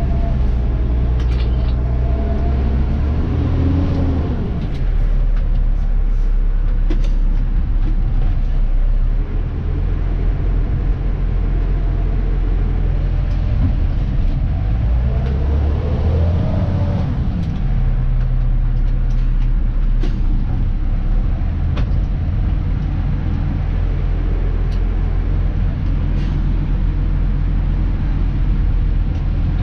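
Dennis Elite 2 refuse truck's diesel engine and drivetrain running under way, heard from the cab, a deep steady drone. A whine falls in pitch in the first few seconds and rises and falls again around halfway, with scattered sharp rattles and clicks throughout.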